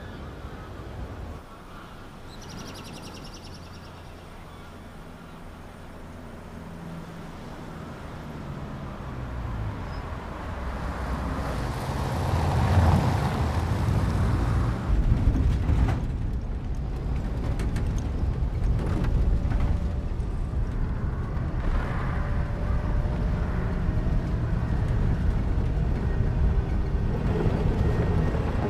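A pickup truck approaches and drives past, its engine and tyre noise growing louder to a peak about 13 seconds in. After that comes the steady engine and road noise of the truck driving.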